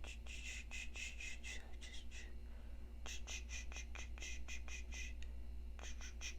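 Quick scratchy strokes close to the microphone, about three or four a second, from work with an eyebrow razor, with a brief pause a little after two seconds in.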